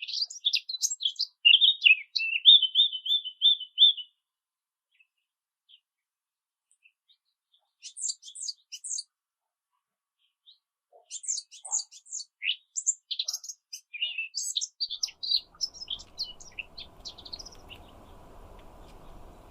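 A small songbird singing fast, high, varied twittering phrases, including a short rapid trill a couple of seconds in, with pauses between bursts. Near the end a faint steady hiss with a thin hum comes in.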